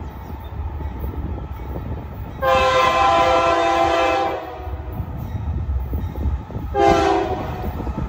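Horn of an approaching Union Pacific diesel locomotive leading a freight train: one long blast of about two seconds, then a short blast about two and a half seconds later, over a low steady rumble.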